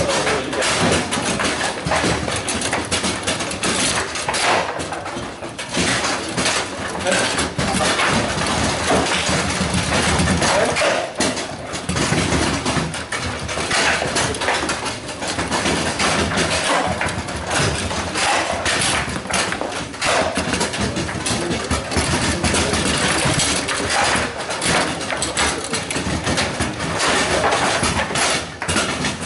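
Table football game in play: a dense, continuous clatter of the ball being knocked by the figures and the rods banging and rattling against the table, over the busy din of a hall with other tables in play.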